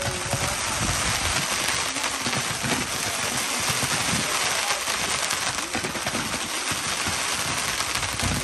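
Ground-fired firework barrage shooting several sparkling comet trails at once: a dense, continuous crackling hiss, with occasional dull thumps underneath.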